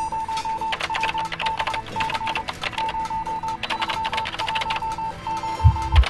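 Short electronic beeps at one steady pitch, repeated quickly in groups of three or four, over dense rapid clicking like a machine at work, with a low thump near the end.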